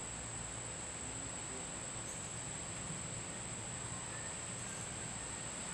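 Steady, unbroken high-pitched trill of insects chorusing, likely crickets, over a faint outdoor hiss.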